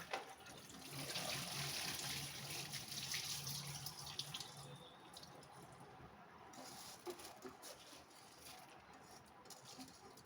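Water being poured and drained off rice that has soaked overnight, a steady pouring and splashing for about four seconds that then dies down to trickles and scattered drips.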